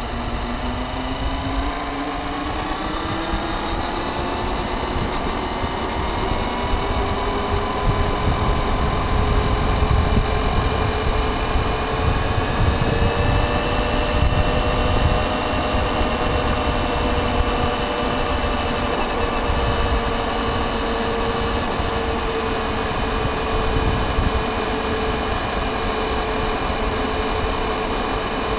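Onboard sound of a radio-controlled car: a whine from its motor and drivetrain that rises in pitch as the car speeds up over the first few seconds, then holds fairly steady, over a low rumble of tyres and wind on the car-mounted camera.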